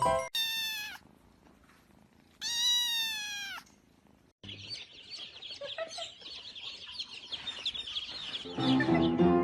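A domestic cat meowing twice: a short meow falling in pitch, then a longer one that rises and falls. This is followed by several seconds of rapid high chirping, and music comes in near the end.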